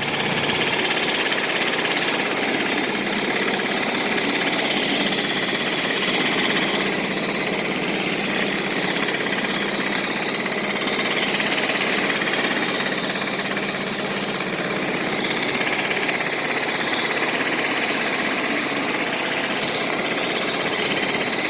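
Pressure washer cleaning a concrete driveway: the machine's engine runs steadily under the even hiss of the water jet striking the concrete.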